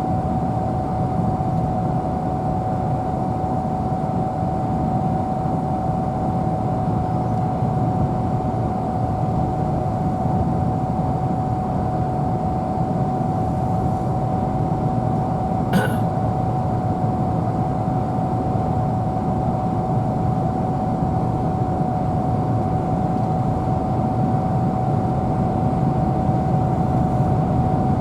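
Steady road noise of a car driving, with a constant whine over the low rumble. A single sharp click sounds a little past halfway.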